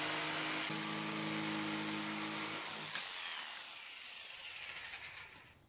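Corded DeWalt jigsaw running as it cuts out a square hole in plywood, switched off about three seconds in, its motor whine falling as it winds down.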